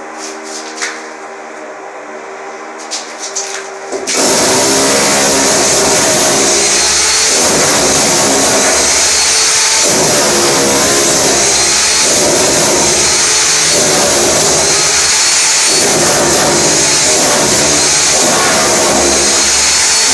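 A hammer drill chiselling a groove for pipes into a gypsum-panel wall. It cuts in suddenly about four seconds in and runs loud and continuous, swelling and easing every couple of seconds as the bit works along the groove. Before it starts there is a steady hum with a few clicks.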